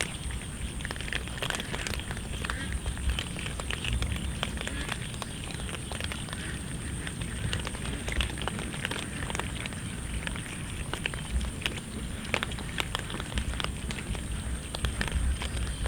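Cats chewing food in the rain: dense, irregular crackling and clicking over steady rain noise, with a steady high whine throughout.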